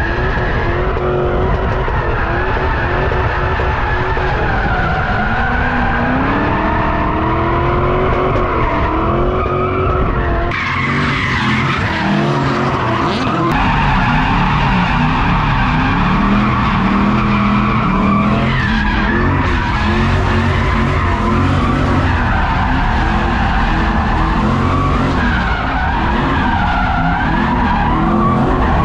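Drift cars sliding, tyres screeching and engines revving up and down hard. The sound changes abruptly about ten seconds in, as if to another car or pass.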